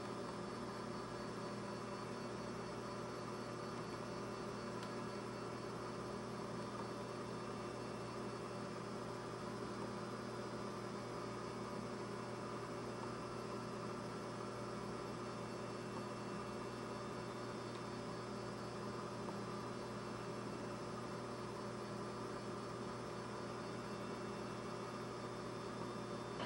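Faint, steady electrical hum with a light hiss underneath, unchanging and with no other events.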